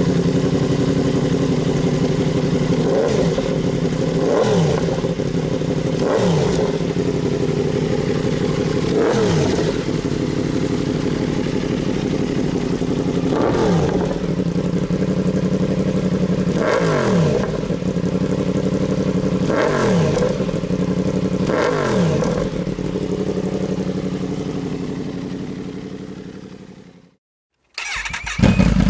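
Yamaha MT-10's crossplane inline-four idling through an SP Engineering de-cat exhaust with stainless Y-piece and carbon silencer, blipped about nine times with the revs rising and dropping quickly each time. The sound fades away near the end and cuts off, then a loud burst comes in just before the close.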